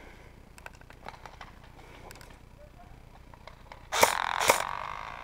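Airsoft gun firing two loud, sharp shots about half a second apart, roughly four seconds in, with a noisy tail fading over about a second; before that only faint clicks of handling and movement.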